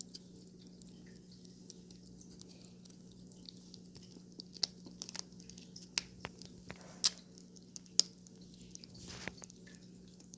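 A cat licking and chewing a treat: scattered wet clicks, thickest and loudest between about four and eight seconds in, over a steady low hum.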